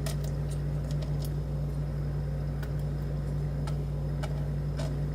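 Steady low electrical hum, with a few faint scattered light clicks of small lock pins and tweezers being handled.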